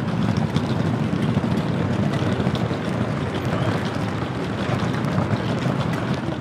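Train station waiting-room ambience: a steady low rumble with faint scattered clicks and clatter.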